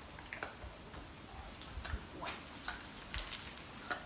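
A dog chewing and nosing at crinkling wrapping paper: short, irregular rustles and clicks.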